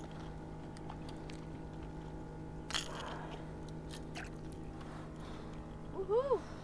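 Close handling noises as a lure is worked out of a small striped bass's mouth with pliers: a few sharp clicks of metal over a steady low hum. Near the end a person makes a short voiced sound that rises and falls in pitch.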